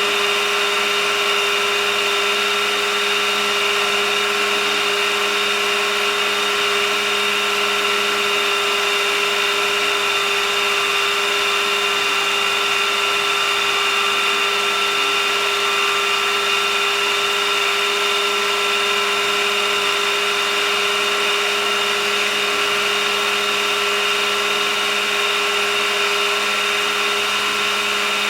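Electric scale RC helicopter (AH-64 Apache model): a steady whine from the motor and drive gears over the rotor noise, holding one speed throughout.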